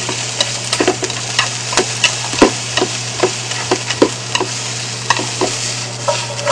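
Vegetables sizzling in hot oil in a frying pan while being stir-fried, with chopsticks and a spatula clicking and scraping against the pan about two or three times a second.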